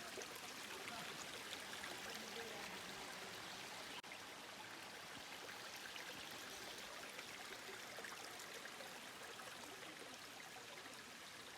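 Steady rush of falling and running water from Kondalilla Falls and its pool, with a brief break about four seconds in.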